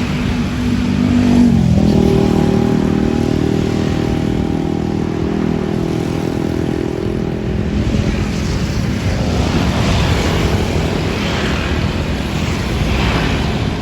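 A bus passing close by, with a loud, steady, pitched sound. About a second and a half in it drops to a lower pitch, then it holds for about six seconds before giving way to road traffic noise.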